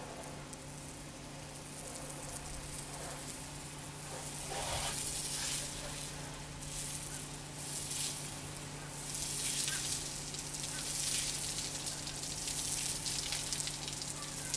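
Low-pressure soft-wash spray wand hissing as its mist sweeps across a tile roof, swelling and fading several times. A steady low hum runs underneath.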